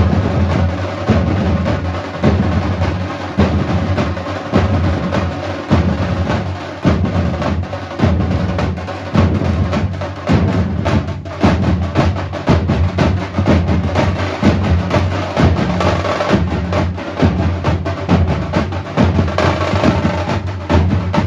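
Live band music driven by loud, dense drumming, with heavy beats falling about once a second over held instrument tones.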